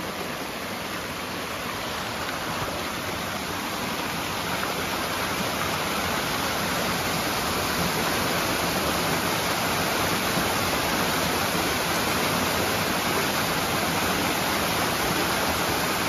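Small waterfall on a rocky mountain creek: water rushing and splashing over rocks in a steady rush, growing a little louder over the first half.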